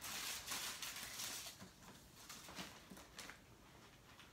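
Plastic snack and candy wrappers crinkling as packets are handled and set down. A run of rustling through the first second and a half, then a couple of shorter rustles.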